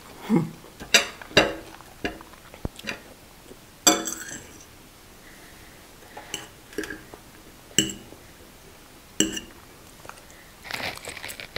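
Metal forks clinking and scraping on ceramic dinner plates: a string of sharp, ringing clinks, with a short burst of noodle slurping near the end.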